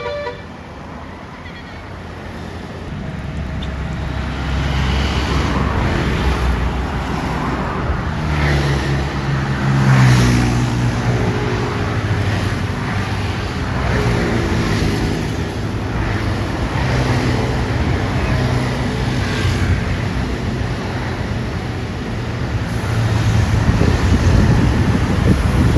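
Large diesel bus engine running loud, building up over the first few seconds and rising in pitch twice as it accelerates, with traffic noise behind it.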